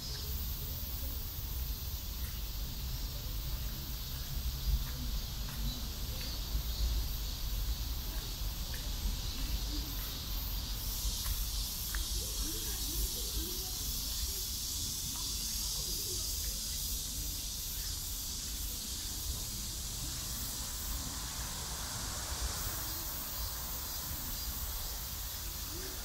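Summer insects, cicadas chief among them, droning as a steady high hiss that thickens about eleven seconds in, over a continuous low rumble.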